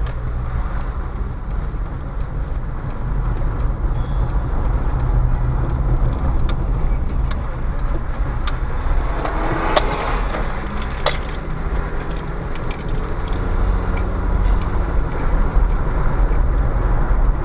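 Car engine and road noise heard from inside the cabin as the car pulls away from a near stop and speeds up, a steady low rumble growing slightly louder toward the end. A few sharp clicks come between about six and eleven seconds in.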